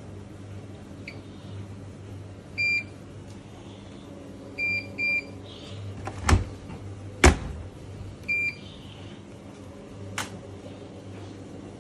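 Bosch Series 4 washing machine control panel beeping: four short high beeps, one about three seconds in, a quick pair about two seconds later and another near eight seconds, over a low steady hum. Two sharp knocks between the beeps are the loudest sounds.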